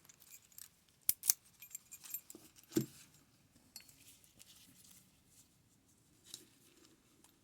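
Keys jingling and a key working in a Yale pin-tumbler lock: a run of sharp metal clicks and light rattles, the loudest about a second in and again near three seconds, then fainter small clicks.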